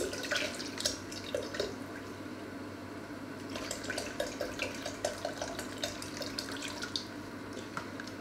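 Liquid pouring from a carton into a plastic measuring jug, splashing and glugging unevenly as it fills.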